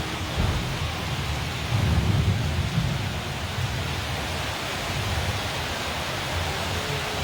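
Heavy rain pouring down steadily in an even hiss, with a low rumble swelling about two seconds in.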